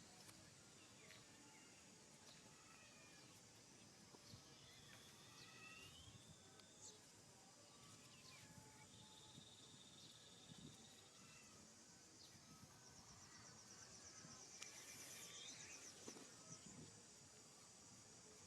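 Faint outdoor ambience: a steady high insect drone, with scattered short bird chirps and whistles. A rapid pulsing trill comes in about two-thirds of the way through and lasts a few seconds.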